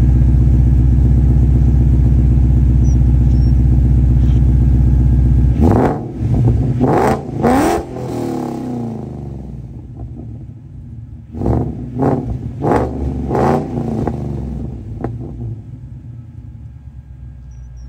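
Mustang V8 idling through a freshly fitted MBRP cat-back exhaust, heard at the tailpipe. Two sets of quick throttle blips follow, about six seconds in and again about twelve seconds in, each rev rising and dropping back to idle.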